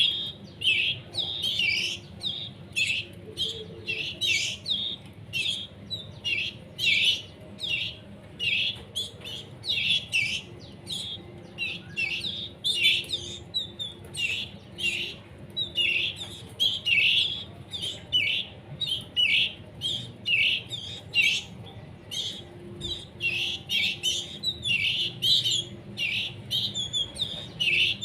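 Young canary chicks giving begging calls as they are hand-fed: short, high chirps repeated about twice a second without a break.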